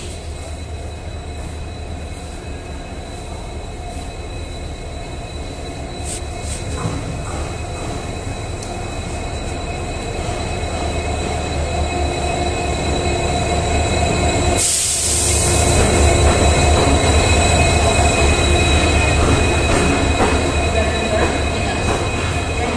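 Indian Railways express train pulling in alongside the platform behind a diesel locomotive: a steady low rumble of the locomotive and rolling coaches, with a high steady squeal of wheels on rail, growing louder toward the middle. A short loud hiss comes about fifteen seconds in.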